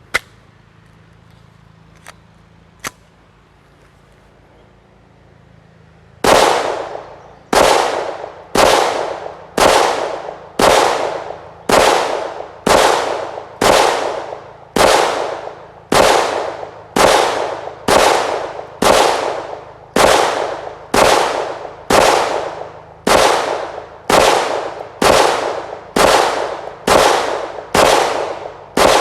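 Kel-Tec CP33 .22 LR pistol firing a long string of shots at a steady pace of about one a second, each crack trailing off in a short echo. It is preceded by a few faint clicks in the first seconds.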